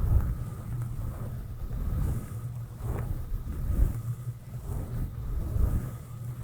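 A soft brush stroking directly over a microphone, giving muffled, low rumbling swishes that swell and fade stroke by stroke.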